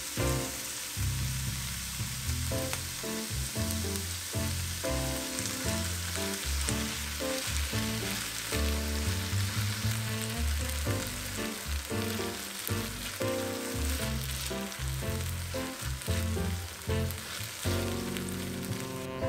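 Diced onion and zucchini with black bean paste sizzling in a frying pan, stirred with a silicone spatula. The sizzle is a steady hiss that cuts off near the end. Background music plays throughout.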